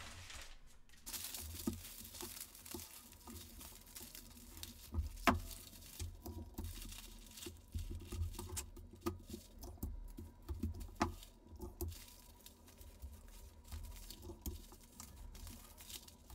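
Rustling and crinkling of a roll of white dot pattern paper being unrolled and smoothed flat over tissue pattern pieces on a table, with a few sharp taps, the loudest about five seconds in.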